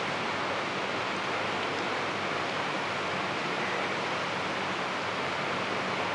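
Steady, even background hiss with a faint low hum underneath.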